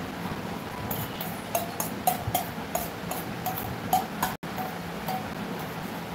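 A quick, irregular series of light clicks and taps from a small object being handled, about a dozen over three seconds, some with a short pitched blip, stopping a little past the middle.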